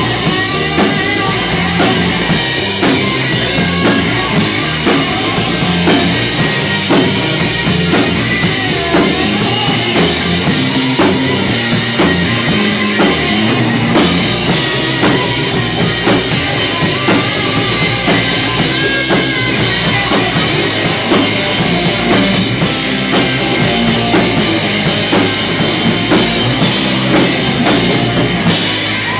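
Live rock band playing an instrumental stretch with no singing: drum kit, bass and electric guitar.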